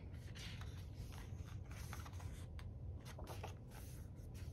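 Pages of a thick paper-bound photobook being turned and smoothed by hand: faint paper rustling and brushing with a few light paper clicks.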